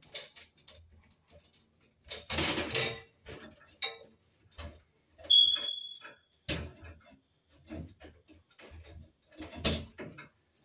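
Electrical wires and pliers being handled at an opened ceiling light fixture: scattered clicks, taps and rustles as wire ends and tool knock against the metal fixture, with a short high squeak about five seconds in.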